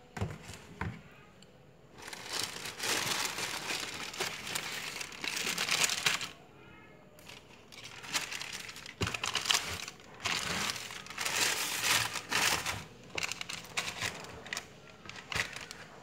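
Tissue paper rustling and crinkling as it is pulled back from new shoes in a shoebox, in two long spells with shorter bursts near the end. A few light knocks come near the start and again about nine seconds in.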